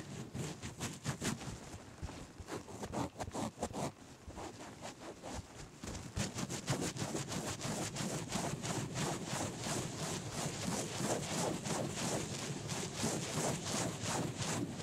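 Fingers massaging a scalp through the hair close to the microphone: a dense, crackling rustle of rubbing, sparse at first and steadier from about six seconds in.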